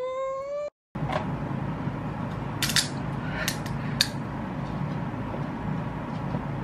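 A Pomeranian whining with a rising pitch, cut off just under a second in. Then a steady low room hum with a few sharp clicks about halfway through as the metal cap of a small glass drink bottle is twisted open.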